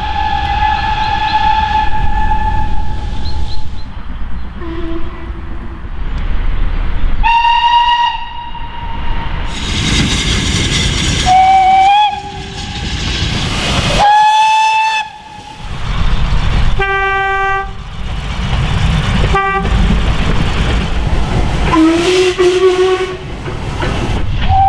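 A string of about seven different steam locomotive whistle blasts in quick succession, each at its own pitch, over the rumble of passing trains. The first is long; the others are short toots, and the sound changes abruptly from one to the next.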